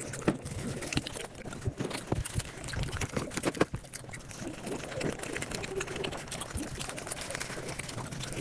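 Eating sounds sped up to five times speed: a dense run of quick chewing, mouth smacks and clicks with no clear rhythm.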